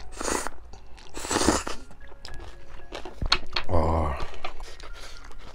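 A person slurping ramen noodles twice in quick succession, then chewing with small wet clicks. About four seconds in comes a short vocal sound that falls in pitch.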